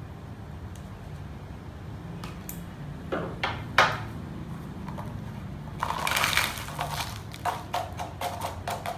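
A few sharp knocks as metal pruning shears and a plastic tub are set down on a wooden tabletop, the loudest about four seconds in. Then a bag rustles and soil mix pours and patters into the plastic tub, with a run of small gritty clicks.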